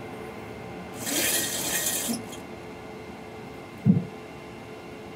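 Boeing 737NG simulator's landing gear retracting after gear-up is selected. A rush of hissing noise starts about a second in and lasts just over a second, then one short, heavy thump comes about four seconds in as the gear stows, over the steady hum of the simulated cockpit.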